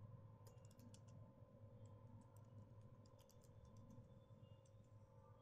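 Faint typing on a computer keyboard: an irregular run of quick key clicks, over a low steady hum.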